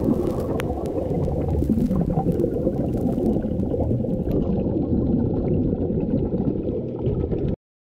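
Underwater water noise heard through a diving camera's housing: a steady, muffled rush with gurgling, which cuts off suddenly near the end.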